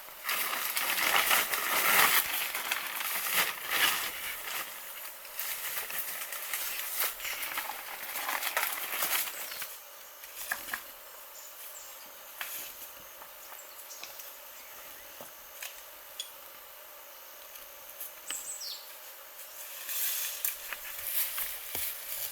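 Rustling and crackling with many small clicks for about the first ten seconds, then a quieter steady outdoor background with occasional clicks and one short falling chirp.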